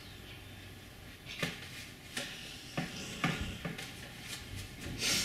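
A paintbrush working paint on a palette: faint dabbing and scraping with several short taps about half a second to a second apart, and a brief scrubbing swell near the end.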